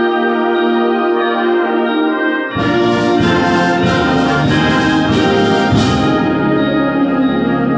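Concert band of woodwinds and brass playing. A held chord sounds first, then about two and a half seconds in the full band comes in with low brass and a run of sharp accented hits, settling into sustained brass chords near the end.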